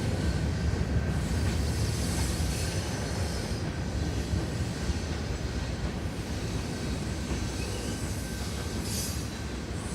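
Freight train cars rolling past: a steady rumble of wheels on rail, with a faint high wheel squeal.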